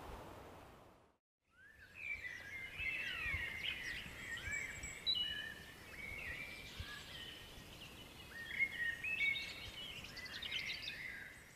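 Outdoor background hiss fades out within the first second. From about a second and a half in, several songbirds sing together, with many quick chirps and whistled notes gliding in pitch, some falling.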